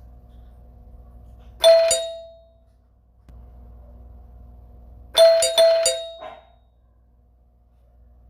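A doorbell rings once, its chime dying away over about a second. About three and a half seconds later it rings again with four quick chimes in a row. A faint steady hum lies underneath.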